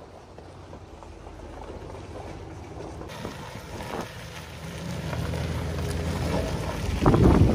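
GMC pickup truck engine running at low speed as it tows a corn head trailer, a steady low hum that grows louder as the truck comes closer. Wind buffets the microphone near the end.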